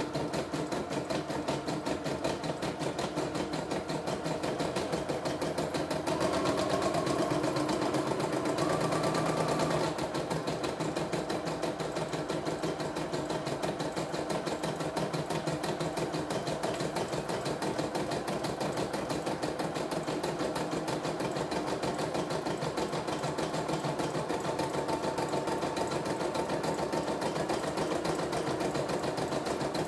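CNY E960 portable embroidery machine stitching out a design: its needle runs in a fast, even rhythm while the embroidery arm moves the hoop under it. It is louder for about four seconds, starting some six seconds in.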